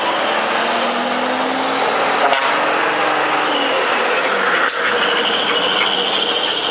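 Decorated trucks driving off, their engines running, with short sharp hisses like air-brake releases a couple of times and a steady high tone from about five seconds in.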